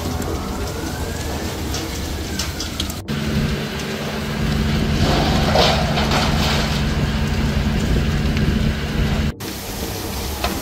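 Water from fire hoses spraying and splashing onto a burning building, a steady rushing hiss of water and fire. A steady low hum sits under it in the middle stretch, and the sound shifts abruptly about three seconds in and again near nine seconds.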